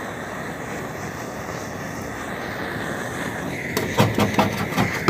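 Handheld LPG burner torch (a 'kompor bakar tikus') burning steadily with an even rushing noise while it heats car paint. About four seconds in, a quick run of knocks and scrapes from a paint scraper against the steel roof panel as the softened paint is lifted.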